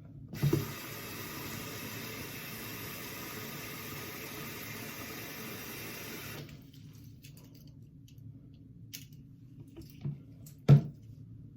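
Water running steadily into a container for about six seconds, then stopping. A few light clicks follow, and a sharp knock near the end.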